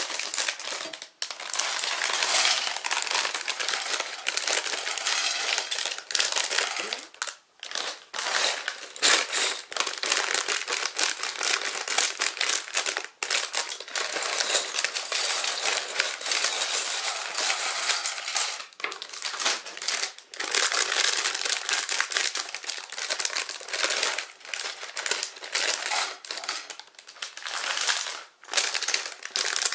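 Thin plastic bags of small plastic building bricks crinkling as they are handled and cut open with scissors, with loose bricks clattering and clinking onto a ceramic plate. The sound goes on with many sharp clicks and a few short pauses.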